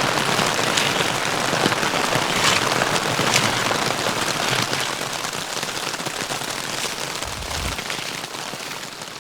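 Heavy rain pouring down in a spring rainstorm, a dense hiss with sharp drop hits, easing somewhat over the last few seconds.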